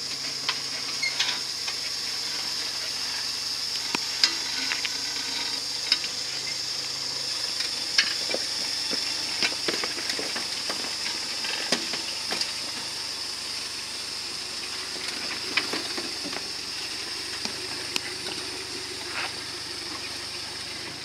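Tyres of a Suzuki Samurai crawling slowly over loose rock, with stones and gravel cracking and popping under them in scattered sharp clicks, over a steady high hiss.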